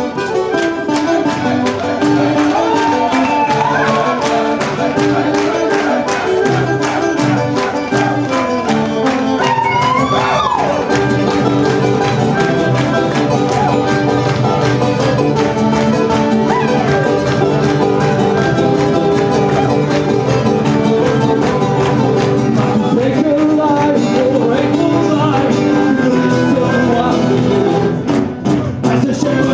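Live Irish-style folk band music: several strummed acoustic guitars and a frame drum keep a steady beat, with a brief dip in loudness near the end.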